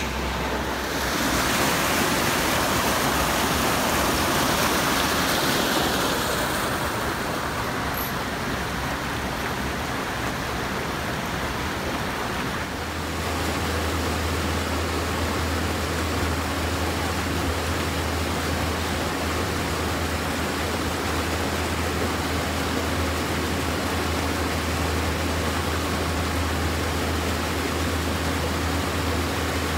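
Rushing water of a rocky brook, joined about halfway through by the steady low hum of an excavator's diesel engine holding a steel bridge span on its chain.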